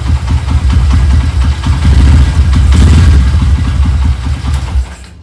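Single-cylinder motorcycle engine running through a free-flow exhaust with a deep, bassy note, pulsing steadily and revved up a little around the middle, then dying away and switched off just before the end.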